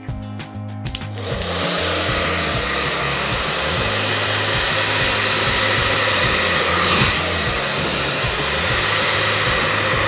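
Handheld hair dryer blowing steadily as it follows a round brush through the hair, starting about a second in and briefly louder around seven seconds in. Background music runs underneath.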